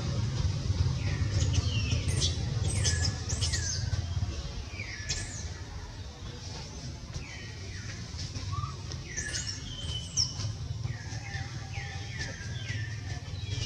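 Infant macaque crying: a string of high, shrill calls, each falling sharply in pitch and then trailing off briefly, repeated every second or so.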